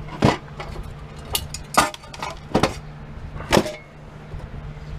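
Small metal scrap parts clinking and clanking as they are handled and dropped, with about four sharp clanks and lighter ticks between them, over a steady low hum.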